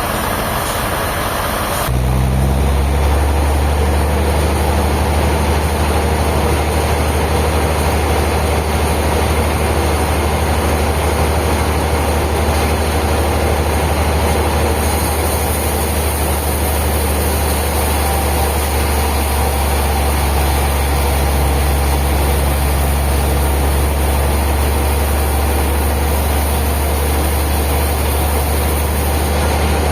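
A heavy engine-driven machine running steadily with a strong low hum; its sound shifts and settles about two seconds in.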